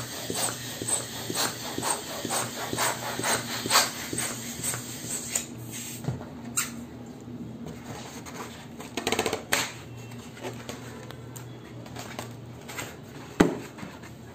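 Hand balloon pump worked in quick strokes, about two or three puffs of air a second, inflating a latex balloon. Then quieter rubbing and handling of the rubber, with a short rustle about two-thirds of the way in and a single sharp snap near the end.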